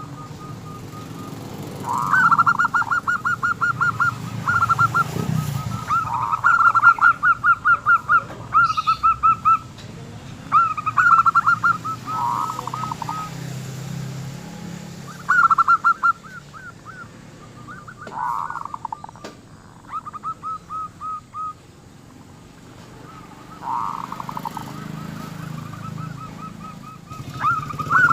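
Zebra doves (perkutut) cooing: repeated phrases of quick, trilled coo notes every few seconds, some pitched higher and some lower.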